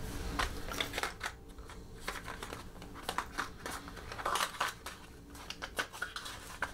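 A small cardboard box handled and slid open by hand: scattered light scrapes, rustles and taps of paperboard.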